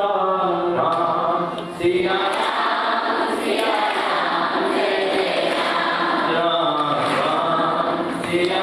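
A large group of girls chanting a devotional hymn together in unison. A single voice carries a line for about the first two seconds before the full group comes in.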